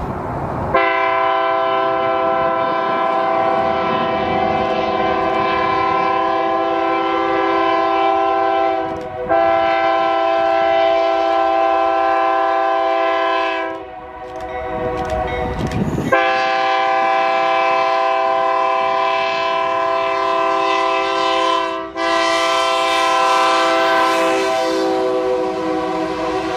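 Train air horn sounding a chord of several tones in long, held blasts. It breaks off for about two seconds past the middle, where only rumbling noise is heard, then sounds again.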